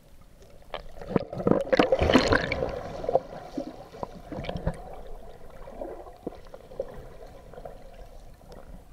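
Water splashing and sloshing, loudest about one to three seconds in with a few sharp knocks, then settling into a lighter lapping.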